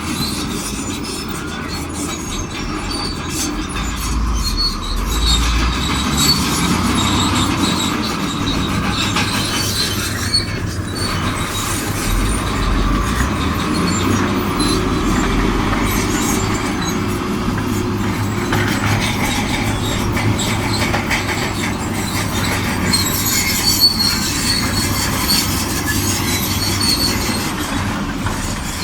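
Shantui DH17C2 crawler bulldozer working, its diesel engine running steadily with the squeak and grind of its steel tracks.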